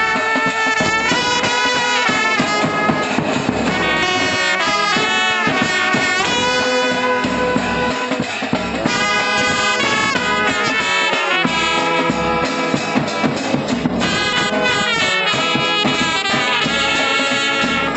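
Brass band playing: trumpets carry the melody over a euphonium, with drum and cymbals, the music steady and loud throughout.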